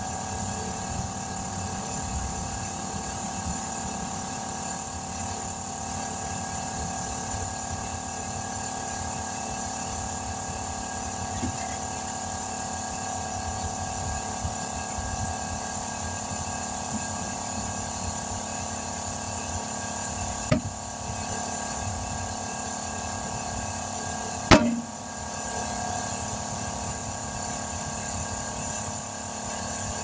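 A newly mounted car tire being inflated through an air chuck on its valve stem, with a steady hum throughout. Two sharp pops, one about two-thirds of the way through and a louder one four seconds later, are the tire beads seating on the rim.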